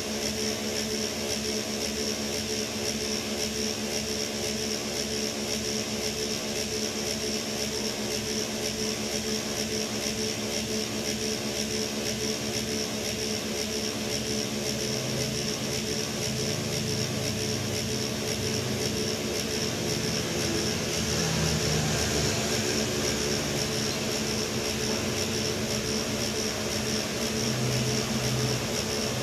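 Dump truck's diesel engine idling steadily, heard from inside the cab, with a steady high-pitched whine above the drone. The low end grows a little louder a little past the middle.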